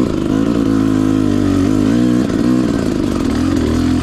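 Dirt bike engine revving up and down as the throttle is worked, its pitch rising and falling several times, with a brief dip a little over two seconds in.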